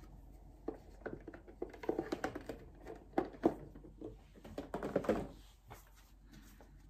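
An oracle card deck being taken out of its cardboard box and handled: irregular soft taps, clicks and rustles, busiest in the middle and thinning out after about five seconds.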